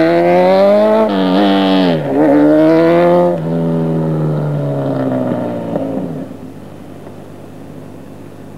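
Honda CBR900RR Fireblade's inline-four engine revving hard, its pitch dropping and climbing again twice as the motorcycle pulls away. The engine note then fades steadily into the distance and is gone after about six seconds.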